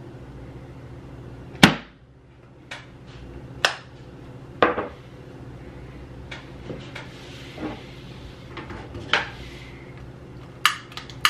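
A series of sharp knocks and clacks as a frosted glass jar, a wooden box and a plastic lighter are picked up and set down on a wooden table, the loudest about a second and a half in, over a steady low hum.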